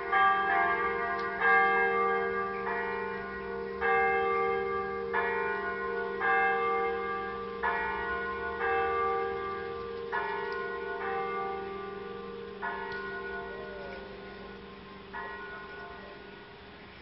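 Electronic church bells, recorded bell sounds played over loudspeakers, pealing with several bells of different pitch struck about once a second over a held low hum. The peal grows steadily quieter and thins out, and the last strike, about 15 seconds in, rings away to nothing.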